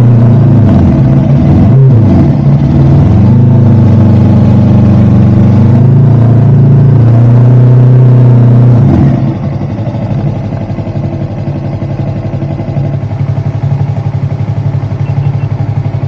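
Motorcycle engine running under way, its pitch dipping and climbing again several times in the first few seconds as the rider shifts gear. About nine seconds in it drops to a quieter, rougher running sound with road and wind noise.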